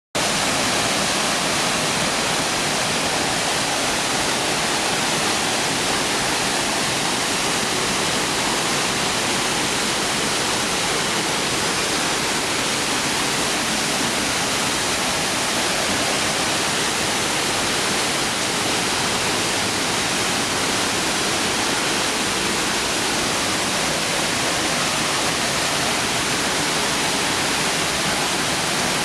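Jion Falls waterfall: a steady, loud rush of falling water.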